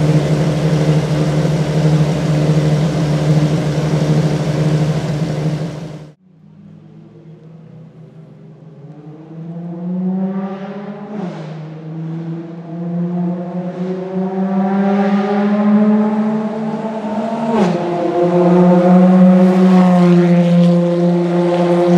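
A Ferrari FXX K Evo's V12 runs loud and steady, then breaks off about six seconds in. After a quieter moment, an FXX K Evo's V12 revs up as the car pulls away and gets louder, the pitch climbing and dropping sharply at two upshifts before holding high near the end.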